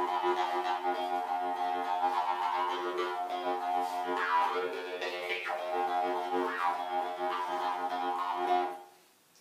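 Jaw harp played as a steady drone on one pitch, its overtones sweeping up and down as the player's mouth shape changes; it stops shortly before the end.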